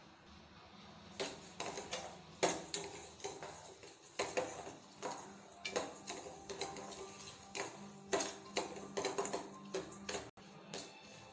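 Utensils clinking and knocking against a dish in quick, irregular taps, over background music.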